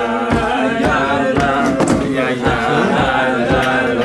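Several men singing a tune together, with a steady beat of knocks about three a second.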